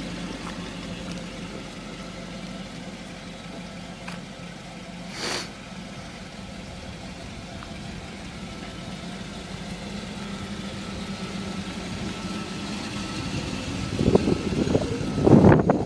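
1987 Pontiac Firebird engine idling steadily, with a short hiss about five seconds in and a run of loud, uneven bursts near the end.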